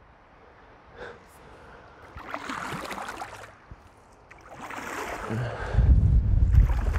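Kayak paddle strokes swishing and splashing in the water, twice, a couple of seconds apart. Near the end a low wind rumble buffets the lavalier mic.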